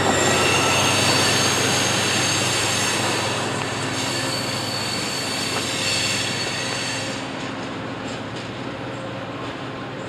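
Freight train's covered hopper cars rolling away on a curve, their wheels squealing in several steady high tones over the rumble of the train. The squeal fades out about seven seconds in, leaving a quieter rumble as the train moves off.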